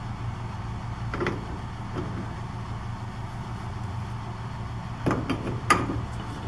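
A few short knocks and clinks from handling copper pipe and the condenser's metal cabinet: one about a second in and a quick cluster near the end. A steady low hum runs under them.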